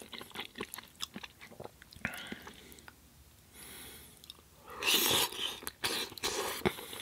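Close-miked chewing of a mouthful of pasta in tomato sauce: wet mouth sounds with many small clicks, and a louder burst of wet sound about five seconds in as another forkful goes into the mouth.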